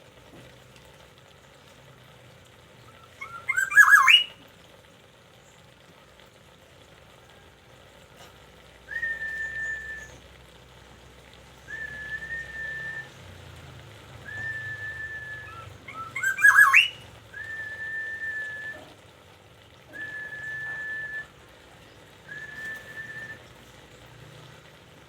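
Black-naped oriole calling: two loud rising calls with a harsh edge, and between them a string of six short level whistled notes, one every two to three seconds.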